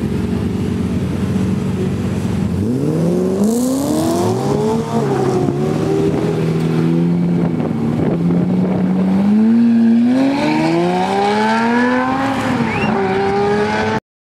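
Lamborghini Murciélago LP670-4 SuperVeloce's 6.5-litre V12 idling, then revving up as the car pulls away and accelerating, the pitch climbing in several surges with drops between. The sound cuts off suddenly near the end.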